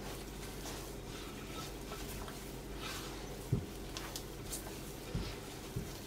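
Hands kneading soft, sticky dough in a glass bowl: quiet squishing with a few soft thuds, over a faint steady hum.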